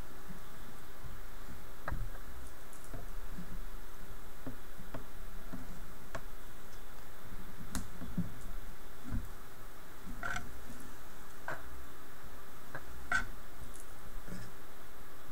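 Scattered, irregular small clicks and taps of a sleying hook against a rigid heddle as warp yarn is pulled through its holes, over a steady background hum.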